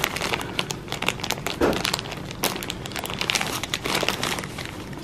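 Clear plastic bag crinkling in quick, irregular crackles as a hand rummages in it for kraft-paper gift tags.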